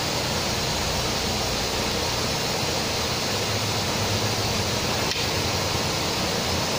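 Steady rushing hiss of a stove burner under a pan of vegetables boiling in water, with one faint click about five seconds in.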